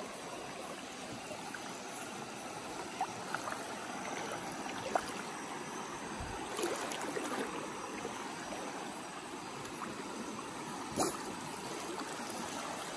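Steady rush of shallow stream water flowing over rocks, with a few brief sharp clicks, the clearest about five seconds in and another near the end.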